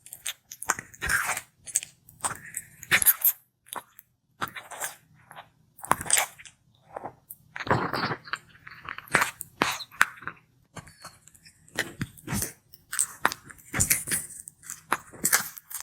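Sulcata tortoise biting and chewing food: a run of irregular, crunchy bites with short pauses between.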